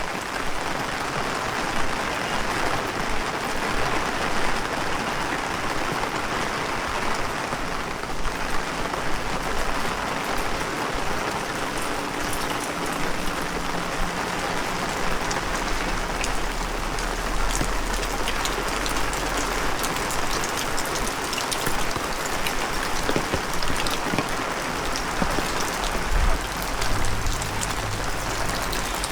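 Heavy rain falling steadily and spattering on hard surfaces, with low rumbles at times, loudest near the end.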